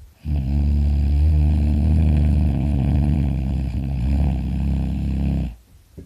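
A person snoring loudly in his sleep: one long, low-pitched snore of about five seconds that starts a moment in and stops shortly before the end.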